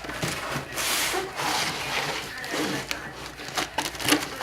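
Cardboard shipping box being cut open with a dull knife, the blade sawing and scraping through packing tape and cardboard in several rough strokes.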